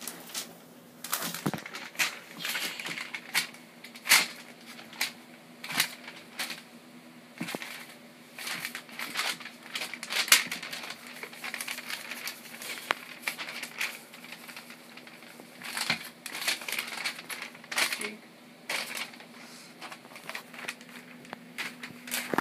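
A sheet of paper crinkling and crackling in irregular bursts as a puppy bites and tugs at it, over a faint steady hum.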